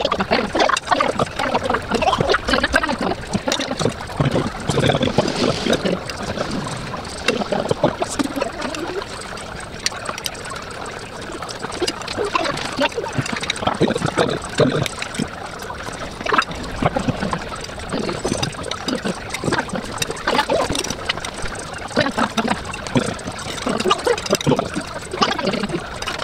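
Forks clinking and scraping on plates during a meal, with low voices at the table.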